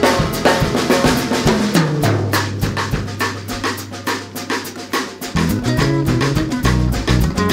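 Background music with a steady drum beat over a bass line; the bass holds one low note for a few seconds in the middle, then moves again.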